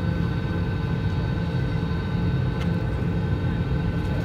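Airbus A320 cabin noise on the ground, heard from a window seat over the wing: a steady low rumble with a few constant high whines.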